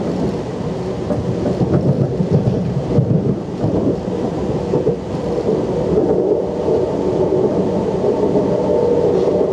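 Cabin noise inside a Talent 2 electric multiple unit under way: a steady low rumble of wheels on rail with a hum that grows a little louder in the second half.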